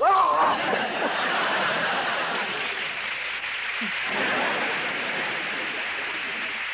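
Live studio audience laughing loudly and steadily at a physical gag, after a short cry right at the start.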